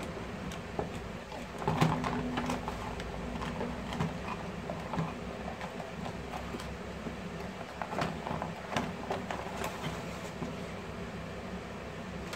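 Cardboard box handled and small plastic panel indicator lights knocked and packed into it: rustling and light clicks, busiest about two seconds in and again around eight to ten seconds, over a steady low background hum.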